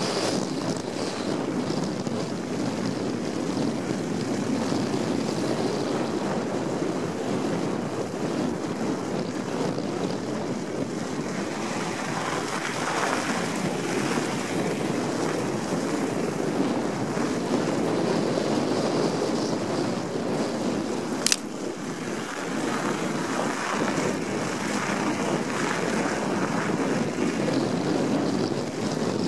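Wind rushing over the microphone of a mountain bike descending a snowmobile trail, with the steady rumble of knobby tyres rolling over packed snow. A single sharp click comes about two-thirds of the way through.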